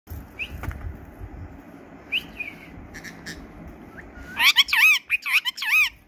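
Caged ring-necked parakeets calling. A few short chirps and clicks come first, then from about four and a half seconds a run of loud, rapid screeches, each rising and falling in pitch.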